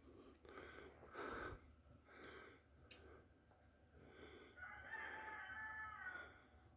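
A rooster crowing once, faintly: one drawn-out crow starting about four and a half seconds in and lasting nearly two seconds. A few short soft sounds come before it.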